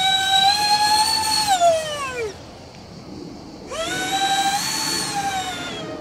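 Twin electric ducted fans of a model Su-35 jet whining. The pitch falls away as the throttle is pulled back, goes quiet for about a second and a half, then climbs again as the fans spool back up and hold a steady whine.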